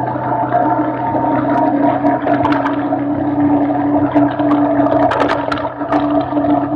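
Quad bike engine running at a steady cruising speed, heard from the bike itself, with scattered clicks and knocks as it rides over rough ground.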